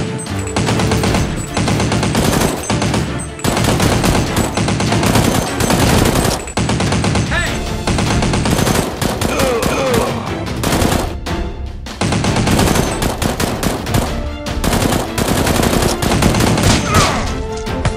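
Automatic gunfire sound effects, rapid strings of shots with short pauses between, dubbed over Nerf blasters firing, with background music underneath.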